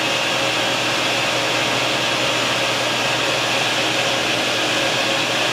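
Forge blower running steadily, forcing air into a charcoal fire: an even rush of air with a faint low hum, the fire driven hard to heat steel toward melting.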